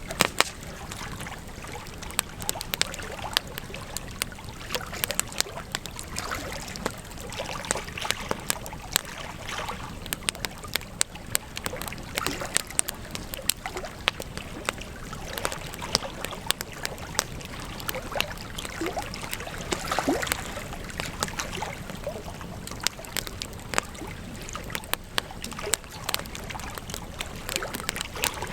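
Wood campfire crackling: a steady hiss of burning with frequent, irregular sharp pops and snaps.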